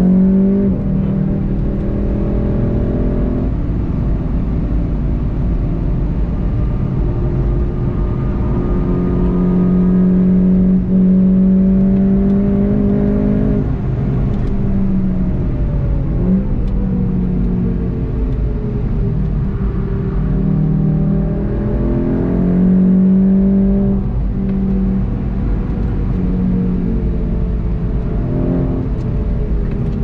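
VW Golf GTI TCR's turbocharged four-cylinder engine, heard from inside the cabin, pulling hard with its note climbing slowly and stepping down a few times as it changes gear, then easing off for a corner near the end. Steady tyre and road rumble runs beneath it.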